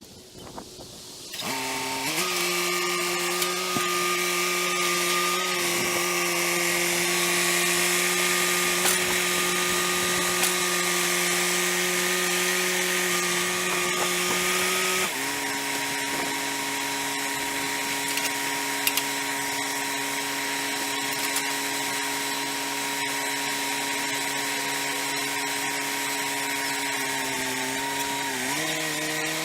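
Wood-Mizer portable band sawmill running: a steady engine-driven drone with a hiss of the blade, its pitch stepping down about halfway through and climbing again near the end.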